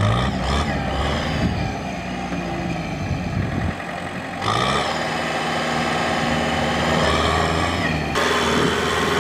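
Kubota M6040SU tractor's four-cylinder diesel engine running hard under load as the bogged tractor tries to pull through deep mud and water. The revs rise about four seconds in.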